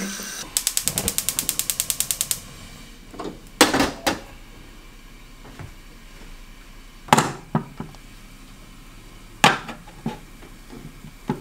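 Gas stove burner's spark igniter clicking rapidly, about ten clicks a second for roughly two seconds, as the burner is lit. Afterwards come a few separate knocks of things being set down on a hard counter.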